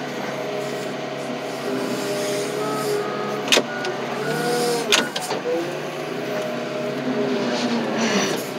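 Heavy hydraulic machine's engine running under load, its pitch sagging and rising several times as the boom and swing are worked, with two sharp clicks about 3.5 and 5 seconds in.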